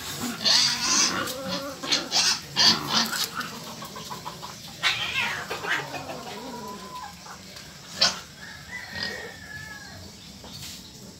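A puppy and a kitten play-fighting: snarling and scuffling in the first few seconds, then the kitten's drawn-out cries, one sliding down in pitch around five seconds and a higher one near nine seconds.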